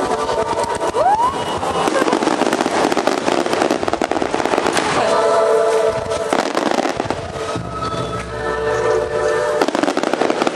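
Fireworks: a shell whistles as it rises about a second in, then dense crackling bursts fill several seconds, with another burst of crackling near the end, over music with held notes.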